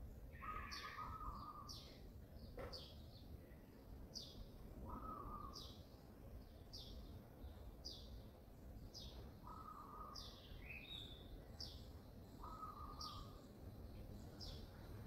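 Birds calling faintly: a short high chirp that sweeps downward, repeated more than once a second, and a lower, flat note held for about half a second every few seconds.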